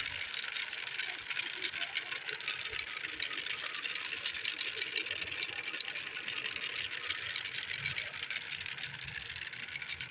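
Many marbles rolling and clicking against each other and along a wooden wave-shaped track, a dense continuous rattling clatter.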